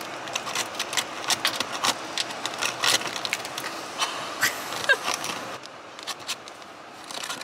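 Plastic ice scraper chipping and scraping a thick glaze of ice off a car's side mirror: a quick run of sharp cracks and clicks as the ice breaks away. The strokes thin out and grow quieter after about five seconds.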